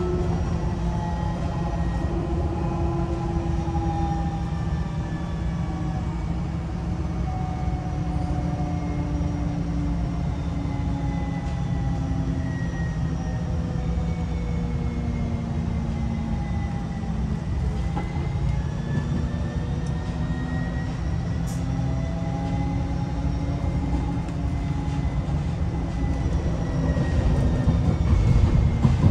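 Interior of a Siemens Avanto electric tram-train running along the track: a steady low rumble of wheels on rail with the electric traction drive's whine on top. The whine sinks slowly in pitch for the first half, then climbs again from a little past the middle as the train picks up speed, and the rumble grows louder near the end.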